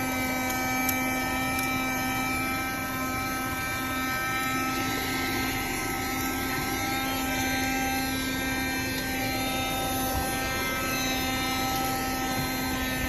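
A 1973 Dynamic battery-powered handheld car vacuum running steadily, its small motor and fan giving a constant hum with a high whine over the rush of air.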